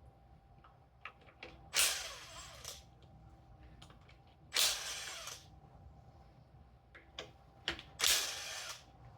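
A handheld power tool spinning out the 10 mm bolts of a 7M-GTE camshaft cap plate in three short runs of about a second each, the motor winding down after each, with light metal clicks of tool and parts in between.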